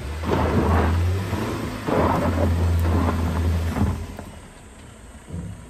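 Lynk & Co 05 SUV's engine straining and its tyres spinning in loose dirt on a steep climb, spraying gravel, in two hard surges that ease off after about four seconds.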